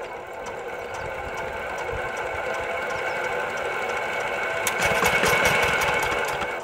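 Single-cylinder diesel engine of a two-wheel walking tractor being hand-cranked. A steady whir builds as the flywheel spins up. About two-thirds of the way through the engine catches, turning louder with a rapid knocking.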